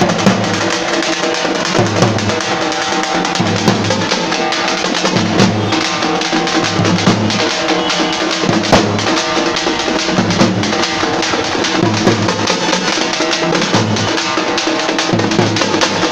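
Dappu frame drums and a large bass drum played together as a street drum troupe, a loud, fast percussion rhythm. A low bass-drum figure comes back about every second and a half.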